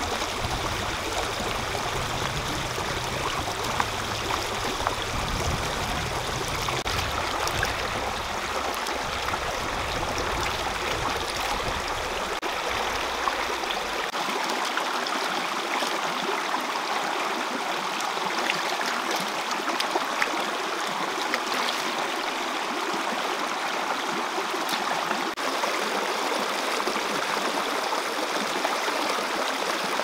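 Shallow rocky stream running over stones, a steady rushing and rippling of water.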